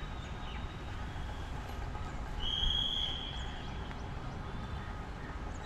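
Outdoor ambience: a steady low rumble with a few faint short chirps, and one steady high-pitched tone starting about two and a half seconds in and lasting over a second.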